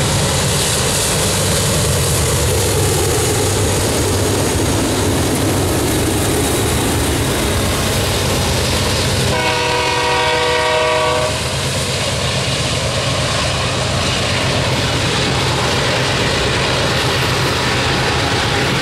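Freight train passing close by, led by two GE C44-9W (Dash 9) diesel-electric locomotives and a GE ES40DC (Gevo) pulling at the top of a grade. Their low engine drone gives way after about eleven seconds to the steady rumble of freight cars rolling past. A short horn blast of about two seconds sounds near the middle.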